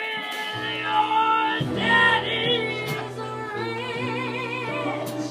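A woman singing live into a microphone, holding long notes with vibrato over steady keyboard accompaniment.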